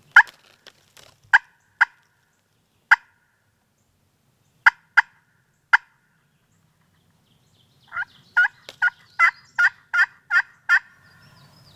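Turkey call imitating a hen: about seven sharp, widely spaced clucks over the first six seconds, then a run of about eight yelps, two or three a second, that starts about eight seconds in.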